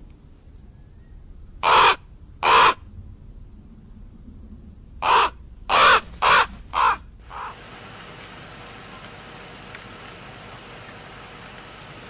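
Crow cawing: two harsh caws about a second apart, then, about five seconds in, four more in quick succession and a fainter last one. After that only a steady outdoor hiss remains.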